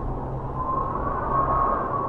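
Howling wind: a steady rushing with a whistling tone that comes in about half a second in and rises and falls in pitch.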